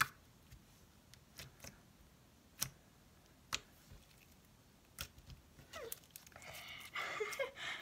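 Glossy white-glue slime being poked and pressed by fingers, giving sharp little pops and clicks about once a second as trapped air bursts, then a longer, louder stretch of squishing near the end.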